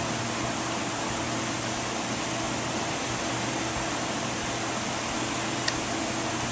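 Steady, even hiss with a faint low hum under it, and one light click about five and a half seconds in as the metal oil pump parts are handled.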